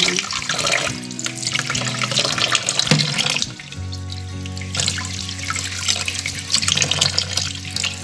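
Kitchen tap running, the stream splashing onto a plate and over leaves being rinsed by hand in a stainless steel sink.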